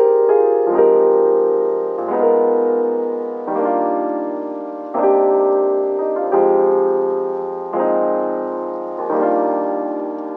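Soft background music on piano, chords struck about every one and a half seconds and left to ring and fade.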